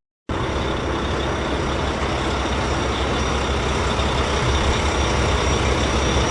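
Dump truck's engine running steadily. It starts suddenly, after a moment's silence.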